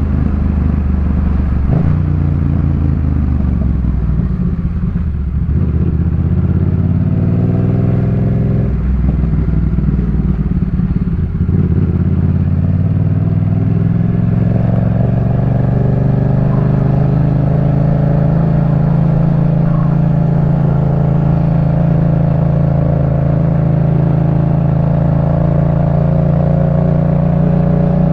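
Yamaha MT-07 parallel-twin engine on a Jeskap K4 full aftermarket exhaust, ridden under way: it revs up through the gears in several rising sweeps with a brief dip about eleven seconds in, then holds a steady cruising note for the second half.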